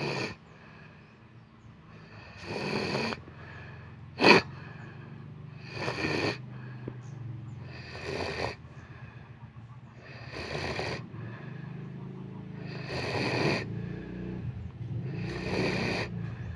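A sleeping person snoring: a rasping snore every two to three seconds, with one short, sharp, louder snort about four seconds in.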